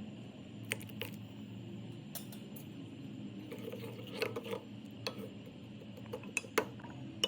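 Scattered light clicks and clinks of small kitchen items being handled, with a short cluster about four seconds in, over a steady low hum.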